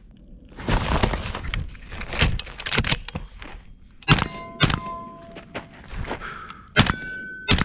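Clattering and rustling of a short AR pistol being drawn from a backpack and readied. Then four suppressed rifle shots, two about half a second apart and two more a couple of seconds later, each followed by the brief ring of a struck steel target.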